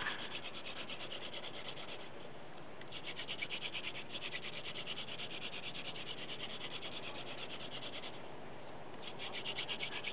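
Hand-drill friction fire-lighting: a cattail-stalk spindle spun between the palms on a white poplar hearth board, making a fast, fine rasping of plant stem grinding on wood. The rasping breaks off twice, about two seconds in and again about eight seconds in, then starts again.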